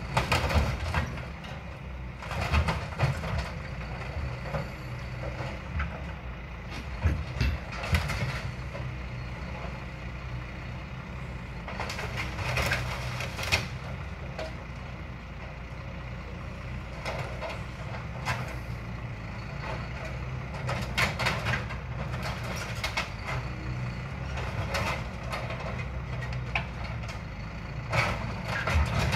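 Diesel engine of a hydraulic scrap grab crane running steadily, with loud metal clanks and scrapes every few seconds as the grapple handles scrap from a ZIL fire engine.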